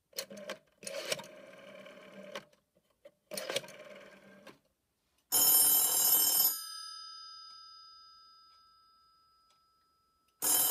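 A rotary telephone dial is pulled round and whirs back twice with clicks, a long return and a shorter one. Then the Cortelco 2500's mechanical bell ringer rings loudly for about a second and rings down slowly, ringing again near the end.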